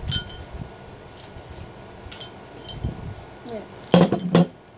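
Hard candies and lollipops clinking and clicking together as they are picked through, a few sharp separate clinks. A boy says a short word near the end.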